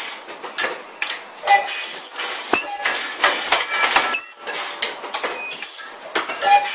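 Irregular clinking, knocking and clattering of parts and tooling at a PP ultrasonic welding machine as it is worked, with a few short high squeals mixed in.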